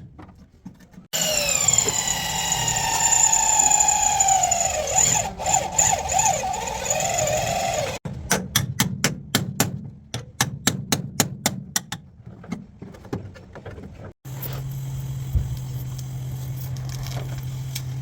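Workshop sounds in quick cuts: a tool's whine with overtones falling steadily in pitch, as a spinning tool winding down, then rapid sharp tapping at about four to five strokes a second, then a steady low hum.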